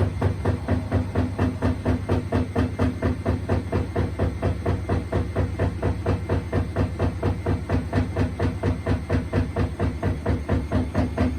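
Washing machine running with a rhythmic knock from the drum, about three beats a second, over a steady motor hum.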